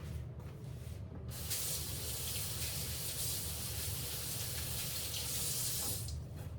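Kitchen sink faucet turned on about a second in, water running steadily as hands are rinsed under it, then turned off near the end.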